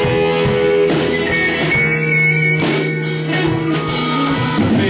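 Live country band playing an instrumental break between vocal lines, with guitar to the fore over a steady drum kit.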